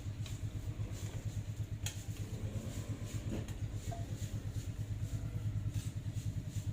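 A steady, low, engine-like rumble that pulses quickly and evenly, with a faint click a little under two seconds in.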